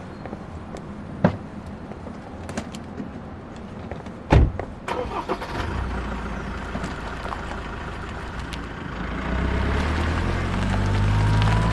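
A car door shuts with a sharp thump about four seconds in, after a smaller knock. Then a car engine runs, growing louder near the end, with a faint rising whine.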